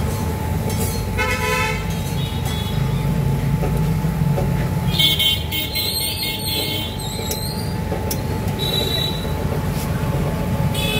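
Street traffic running steadily, with vehicle horns honking several times: a short toot about a second in, a longer one around five to six seconds in, and another around nine seconds.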